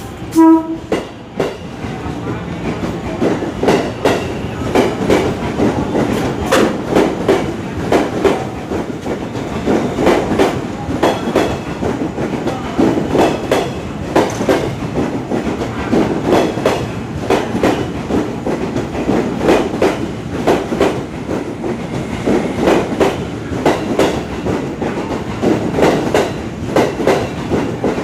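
A train passing with its wheels clattering over the rail joints in a steady clickety-clack. A brief, loud horn note sounds just after the start.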